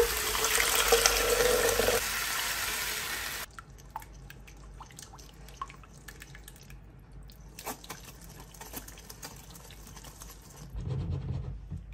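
Water poured from a blender jug through a mesh strainer into a pot of potatoes for about three seconds. After that come faint scrapes and light clicks as a metal ladle presses puréed vegetables through the strainer.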